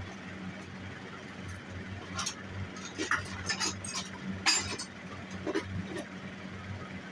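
Scattered light metallic clinks and knocks of sterling silver pieces and hand tools being handled on a jeweller's bench while shaping the silver, over a steady low hum.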